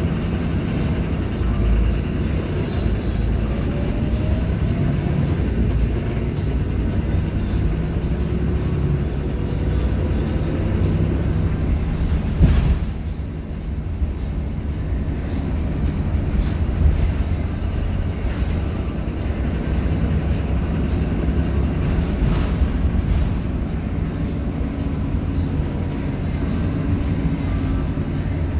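Inside the saloon of a Volvo B7RLE single-deck bus on the move: its six-cylinder diesel engine runs with a steady low rumble and road noise, the engine note rising and falling slowly. One sharp knock sounds about twelve seconds in.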